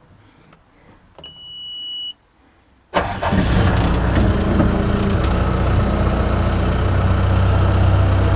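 A steady high-pitched warning beep sounds for about a second, then an engine starts abruptly about three seconds in and settles into a steady run.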